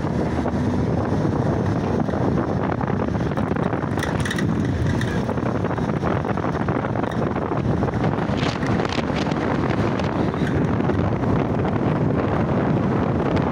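Steady road and wind noise from a car driving along a rough village road, with wind buffeting the phone's microphone.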